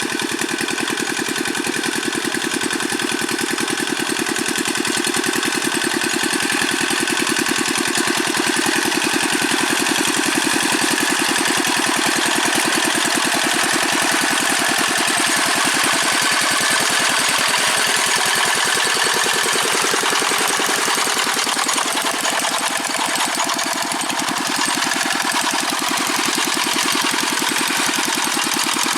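The old single-cylinder Dongfeng diesel engine of a Quick G600 hand tractor runs steadily with a fast, even firing beat. Its speed sags briefly a little past the middle, then recovers.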